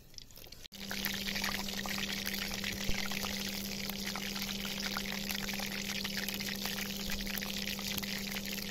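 Steady hiss with many small crackles from a wood-fired camp stove with a kadai of hot frying oil on it, over a low steady hum. It starts abruptly about a second in.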